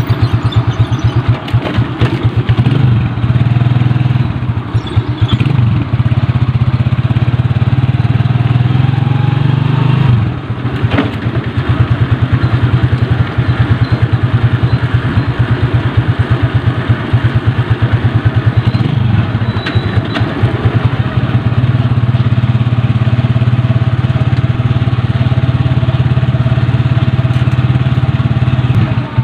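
Motorcycle engine running steadily while riding, heard from on the bike. The engine note drops briefly about ten seconds in, then picks back up.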